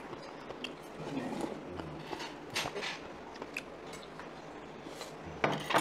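Eating sounds at a table of acorn kalguksu (noodle soup): chewing and scattered soft clicks of cutlery, with a louder burst of noise near the end.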